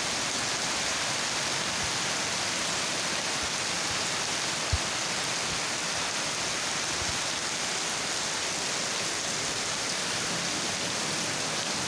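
Heavy rain falling steadily, a dense even hiss of the downpour with water pouring off the metal roof edges. One dull thump about five seconds in.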